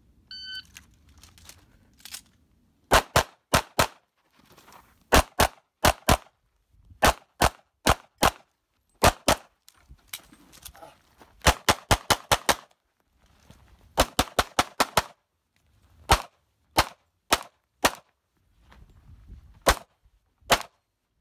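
An electronic shot-timer start beep sounds just after the start. From about three seconds in, a handgun fires a USPSA course of fire: about thirty shots in fast strings of two to six, with short pauses between strings as the shooter moves between positions. The last few shots come singly, more spaced out.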